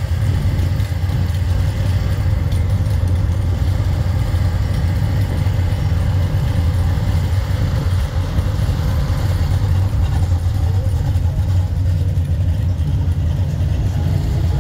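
Engines of classic Chevrolet cars idling with a steady low rumble as they roll slowly past.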